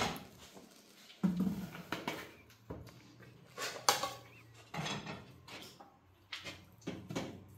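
Pots, dishes and utensils being handled: irregular knocks and clatters with short pauses between them.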